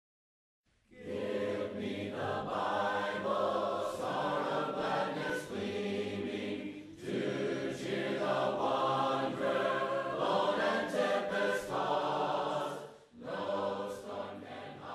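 A congregation singing a hymn together without instruments, in long phrases that break briefly about seven and thirteen seconds in.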